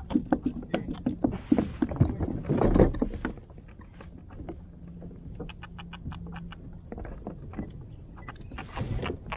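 Fishing reel being worked while hooked cencaru (torpedo scad) are hauled up: a fast run of sharp clicks with a few louder noisy rushes in the first three seconds, then a quieter run of even clicks, about seven a second, over a low steady hum in the middle.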